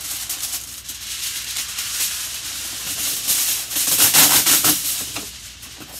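Aluminium foil being pulled off an extra-wide roll, crinkling and rustling, loudest and most crackly a little past the middle.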